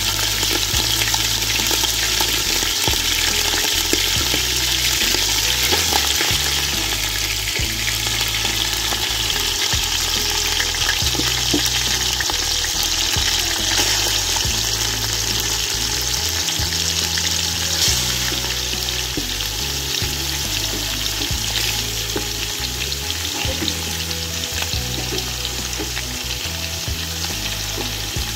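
Pieces of beef liver sizzling in hot oil in a stainless steel pot: a steady frying hiss with scattered small pops and crackles.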